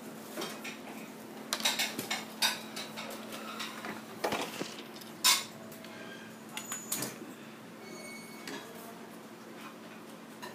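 Plastic toy dishes and cups clattering and knocking together in a quick run of clacks, the loudest knock about five seconds in, then fewer and fainter.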